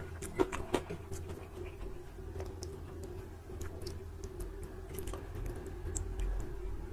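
Close-miked eating sounds from someone eating rice with mutton gravy: soft, irregular wet mouth clicks and smacks, with two sharper clicks near the start. A low steady hum runs underneath.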